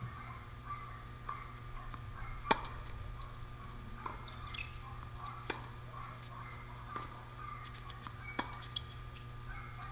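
Tennis ball struck by rackets and bouncing on a hard court during a doubles rally: a series of sharp pops roughly a second apart, the loudest about two and a half seconds in.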